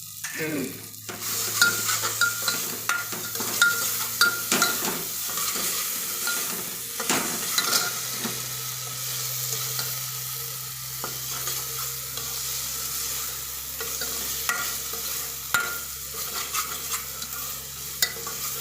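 Onion and tomato masala sizzling in oil in a pressure cooker while a spoon stirs it, knocking and scraping against the pot, with the clicks thickest in the first half.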